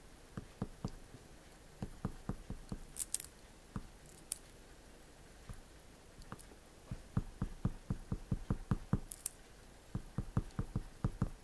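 Oil pastel crayon stroking and tapping on drawing paper in short, quick strokes. They come sparsely at first, then in a fast run of about five or six a second in the second half, with an occasional scratchier stroke.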